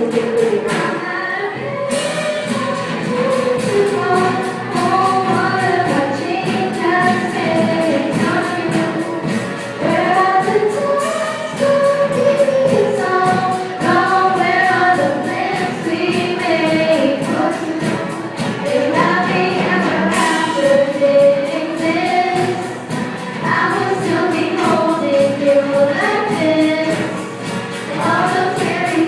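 Music: several voices singing together over a steady beat.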